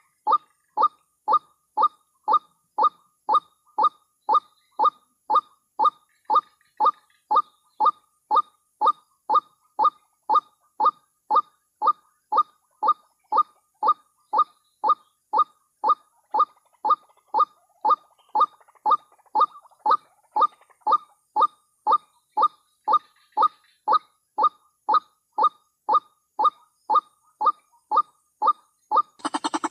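White-breasted waterhen calling: a short nasal note repeated evenly about twice a second without a break.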